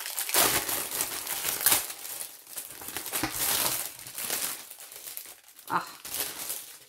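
Packaging crinkling and rustling as a cross-stitch kit issue is unwrapped and handled, loudest in the first couple of seconds and then going on in patches.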